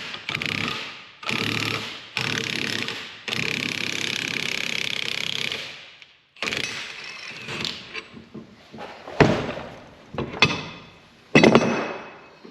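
Impact wrench run in four bursts in the first six seconds, the last about three seconds long, loosening bolts. Then scattered metal clanks and knocks from parts and tools, the loudest two about nine and eleven and a half seconds in.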